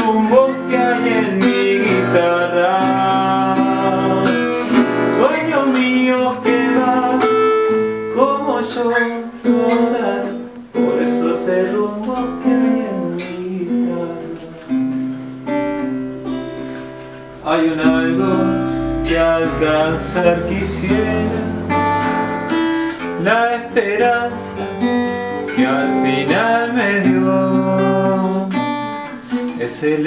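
Acoustic guitar playing a song's instrumental passage, strummed and plucked. It eases off briefly a little past the middle, then comes back louder.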